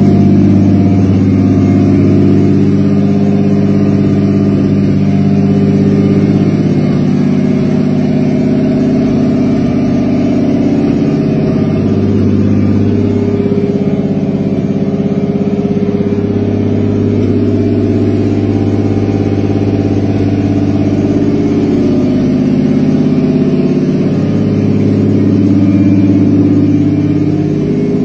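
Car engine running steadily at idle: a deep, even hum that swells and fades slightly every few seconds, with no revving.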